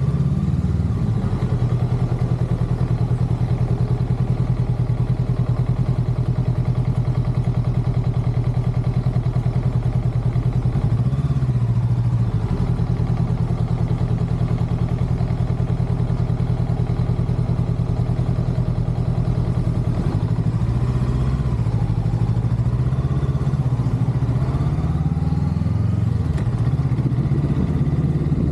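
Motorcycle engine running at low revs with an even, rapid beat. There are short rises and falls in pitch around the middle and several more near the end as the throttle is opened and closed.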